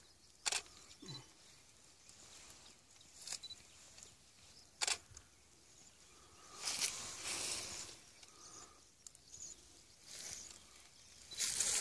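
Quiet outdoor background with a few short, sharp clicks and a couple of brief rustles.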